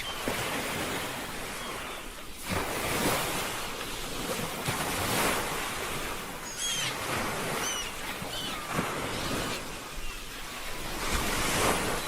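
Ocean waves washing onto a shore, swelling and falling back, with louder surges about two and a half seconds in, around five seconds and near the end. A few short high calls sound briefly in the middle.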